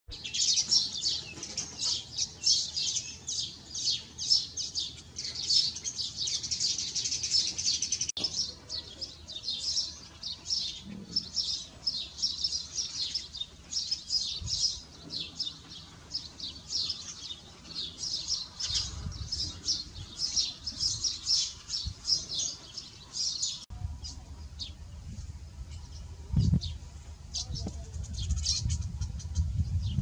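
Weaver birds chattering: a dense, fast stream of high chirps and buzzy notes. About three-quarters of the way through the chirping thins out and a low rumble comes in beneath it.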